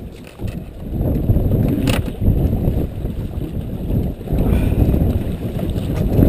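Wind buffeting the microphone: a low, uneven rumble that rises and falls. There is one sharp click about two seconds in.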